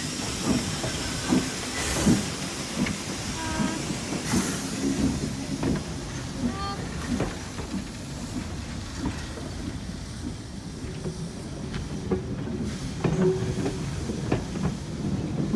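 Steam locomotive No. 4389 pulling a train of vintage passenger carriages slowly past. Escaping steam hisses in the first few seconds. Then the carriages roll by with wheels clicking and clanking over rail joints, a little louder near the end.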